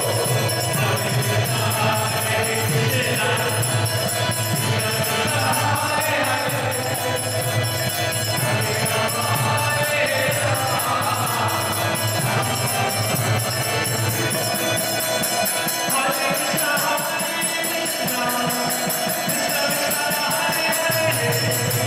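Devotional kirtan: a man sings a chant over his own harmonium, with jingling percussion keeping time. The low accompaniment drops out for a few seconds in the second half, then comes back near the end.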